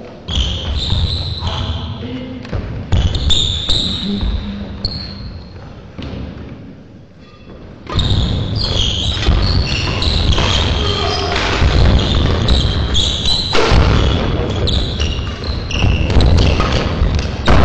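Badminton played on an indoor court: rackets hitting the shuttlecock, shoes squeaking and feet thudding on the court floor, echoing around the hall. It goes quiet for a moment, then a busy rally starts about eight seconds in.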